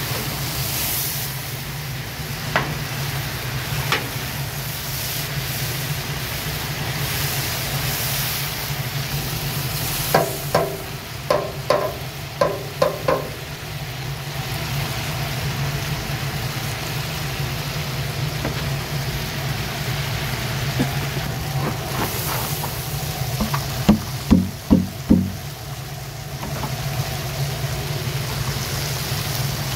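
Meat sizzling as it browns in hot oil in a cast-iron kazan for plov, a steady frying hiss over a low steady rumble. Two quick runs of sharp knocks cut through it, about six around a third of the way in and about four after two-thirds of the way in.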